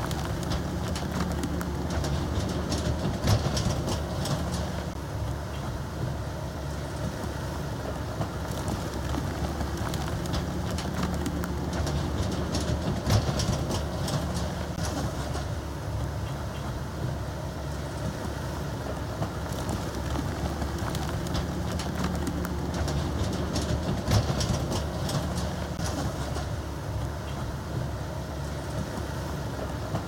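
Komatsu D65E bulldozer's diesel engine running and working, its note swelling under load about every ten seconds with bursts of metallic rattling.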